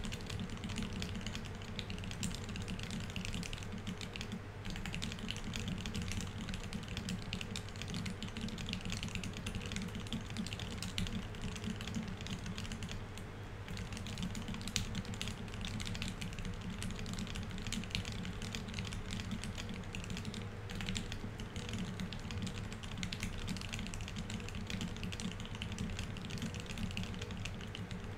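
Fast, continuous typing on a Keycult 1/65 aluminium 65% mechanical keyboard fitted with Tealios V2 67 g linear switches, C3 stabilizers and GMK Oblivion keycaps: a dense, even stream of keystroke clacks at speed-test pace of around 147 words a minute, easing briefly twice.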